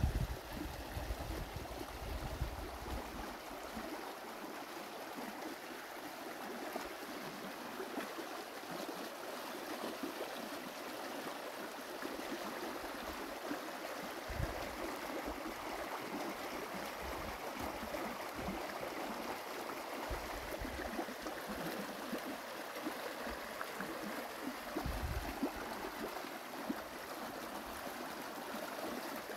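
Spring water rising out of the ground and running over rocks into a shallow stream: a steady babbling rush. A few brief low rumbles on the microphone come near the start, around the middle and later on.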